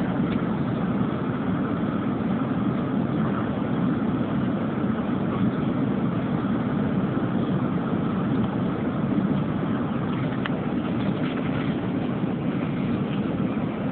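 Steady jet airliner cabin noise heard from a window seat: engine and airflow noise, a low rumble with a hiss over it, unchanging throughout, as the aircraft descends above the clouds.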